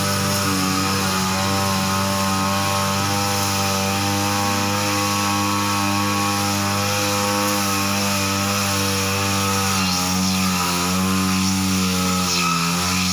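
Backpack brush cutter's small petrol engine running steadily at high speed while its trimmer head cuts lawn grass; near the end the engine pitch wavers and dips.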